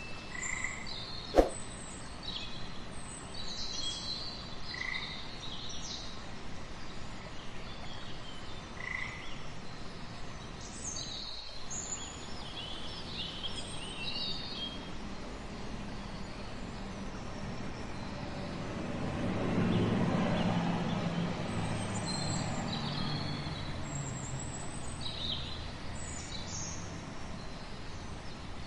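Outdoor nature ambience: scattered bird chirps over a steady background hiss, with a few short frog calls. A single sharp click sounds just over a second in, and a low rumble swells and fades about twenty seconds in.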